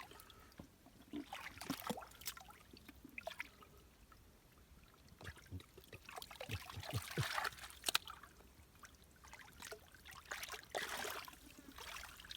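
Shallow water splashing and dribbling in faint, irregular splashes as hands work through a near-dry stream bed feeling for fish.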